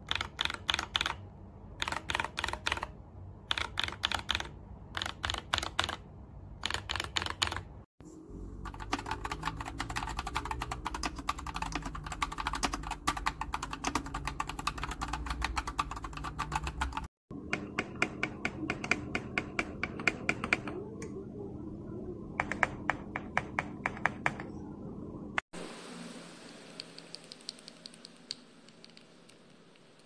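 Typing on mechanical keyboards fitted with Akko Cream Yellow V3 linear switches, across several short clips. It opens with quick rolls of keystrokes and short gaps between them, runs on about 8 seconds in as a long stretch of fast continuous typing, goes back to bursts of keystrokes with pauses about 17 seconds in, and turns to fainter clicking near the end.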